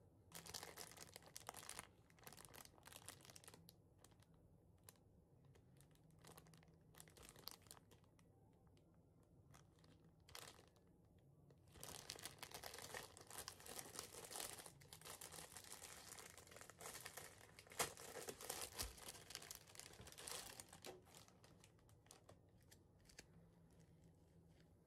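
Soft crinkling and rustling of a plastic bread wrapper being handled, in irregular spells, busiest through the second half, with a few light keyboard clicks near the start.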